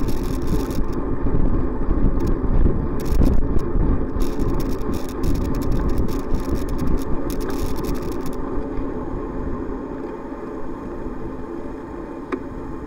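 Wind buffeting the microphone of a bicycle-mounted camera, mixed with tyre noise on a wet road while cycling, with scattered clicks and crackles over the first eight seconds or so. The noise eases off gradually in the second half.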